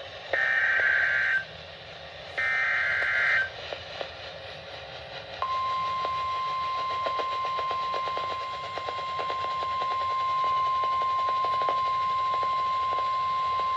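Emergency alert on NOAA Weather Radio. Two data bursts of the SAME header, each about a second long, are followed about five seconds in by the single steady 1050 Hz warning alarm tone, which signals a warning-level alert, here a severe thunderstorm warning. Crackling radio static runs underneath.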